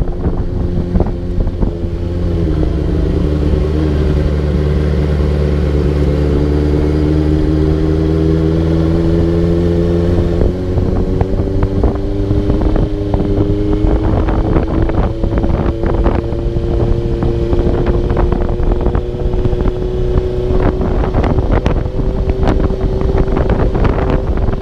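Honda CBR650F's inline-four engine running while riding. Its pitch climbs about two seconds in, dips briefly around ten seconds in, then slowly rises again. Wind rushes over the action-camera microphone.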